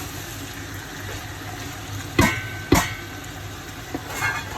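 Chicken frying in a pot with a steady sizzle. A little over two seconds in come two sharp metallic clanks about half a second apart, a spoon knocking on the pot, with a brief ring after the first.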